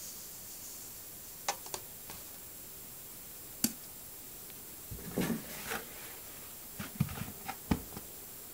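Handling noises from a cardboard detergent drum being picked up and moved: scattered sharp clicks and knocks, with a short rubbing scrape about five seconds in, over a steady background hiss.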